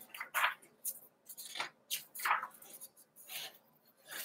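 Paper rustling as cookbook pages and sheets are handled: a string of short, irregular swishes.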